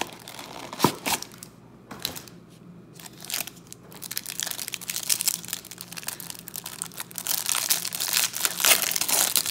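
Trading-card pack being handled, with a few sharp crackles in the first second. From about four seconds in, the clear plastic wrapper around a stack of baseball cards crinkles steadily and grows louder as it is peeled off.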